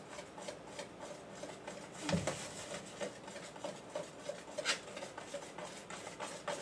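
Hand whisk stirring chocolate cake batter in a mixing bowl: an irregular run of soft scraping and light clicks against the bowl's sides, with a louder knock about two seconds in and a sharper click a little past the middle, as he mixes in the last of the dry cake mix.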